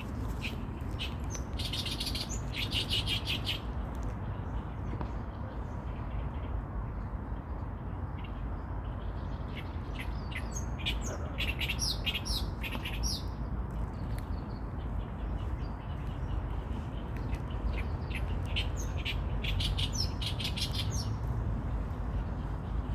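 A songbird calling in three bouts of rapid, high chirps, a few seconds apart, over a steady low rumble.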